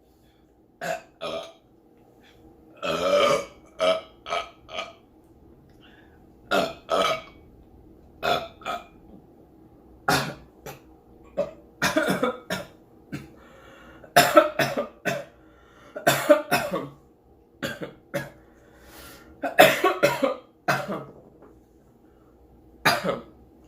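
A woman burping loudly over and over, a dozen or more irregular burps in a row, brought on by gulping beer. Some of them verge on retching: she felt she was about to throw up.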